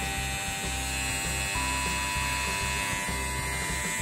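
Happy King HK-900 electric hair clipper running steadily on a test run just after being switched on, with music playing alongside.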